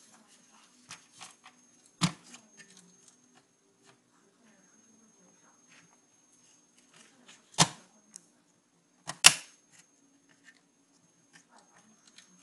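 Small clicks and taps of a CD-ROM drive's circuit board and casing being handled while it is taken apart, with three sharper knocks spread through the stretch.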